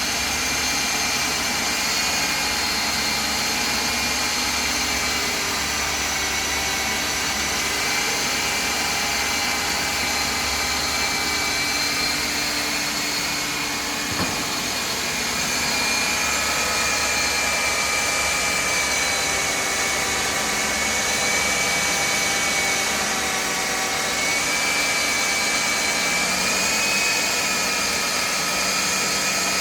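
Hilti DD 160 diamond core drill running steadily while coring into concrete: a high motor whine over a rushing noise, with one short click about fourteen seconds in.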